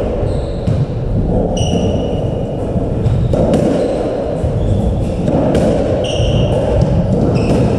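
Squash shoes squeaking in a few short high squeals on the court's wooden floor, among scattered knocks and thuds in the echoing court.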